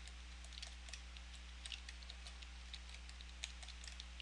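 Typing on a computer keyboard: faint, quick, irregular key clicks, over a steady low hum.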